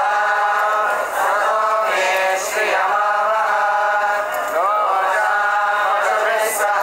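A group of men chanting mantras together in unison, with no break.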